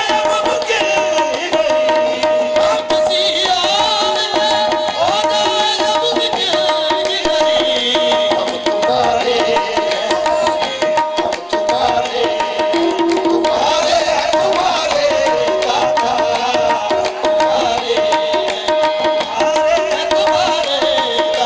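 Live qawwali music: harmonium holding a steady note under a wavering melody, with tabla drumming and sung lines.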